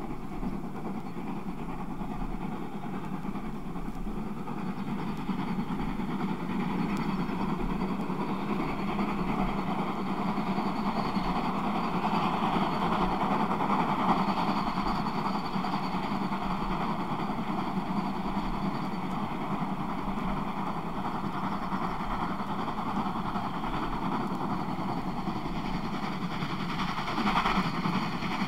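German steam locomotive working hard up a rising gradient, its exhaust growing louder over the first dozen seconds and then holding steady.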